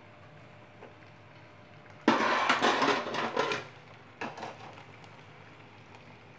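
Kitchen utensils clattering against a metal pot: a sudden burst of rattling knocks about two seconds in, lasting about a second and a half, then one short knock a little later.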